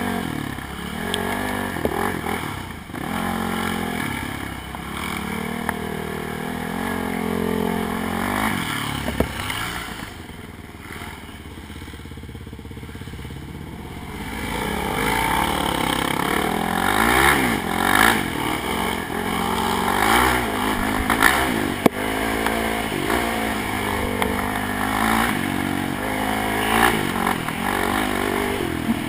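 ATV engine revving up and down as it is ridden along a bumpy dirt trail, easing off for a few seconds about a third of the way in and then picking up again, with rattling and clatter from the machine over the bumps.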